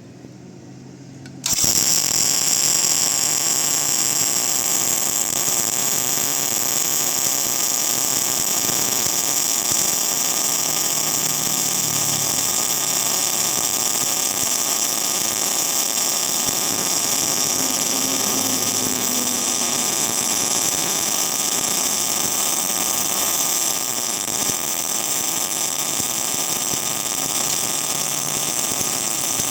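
350 A MIG welder arc welding: the arc strikes suddenly about a second and a half in and then burns as a steady, loud, hissing crackle, after a faint hum from the machine beforehand.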